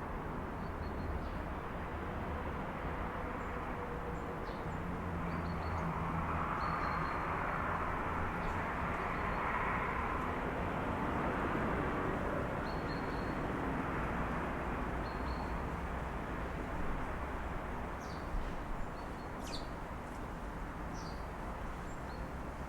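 City street ambience heard through an open window: a steady traffic rumble that swells for several seconds in the middle as a vehicle passes, with short bird chirps scattered throughout and a few sharper calls near the end.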